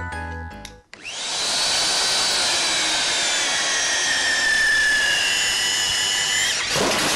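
Magnetic drill press starting up and running under power: a loud steady motor noise with a high whine that slowly sinks in pitch. The sound changes abruptly about six and a half seconds in.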